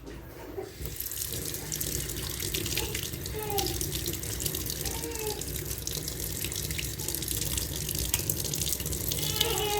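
Tap water running steadily, starting about a second in, as the removed car air-blower fan is rinsed under it.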